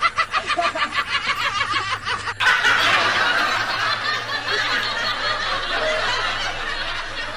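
Laughter: a quick run of rapid, high-pitched laughs for about two and a half seconds, then, after an abrupt cut, a denser and louder wash of laughter.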